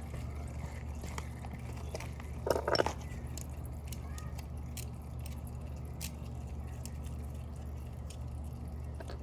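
Hand tools being handled: light scattered clicks of metal sockets, with a short clatter about two and a half seconds in, over a steady low hum.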